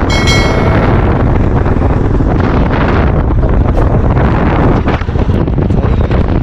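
Wind buffeting the microphone of a camera on a moving motorcycle, a loud steady rush. A brief high chime sounds right at the start.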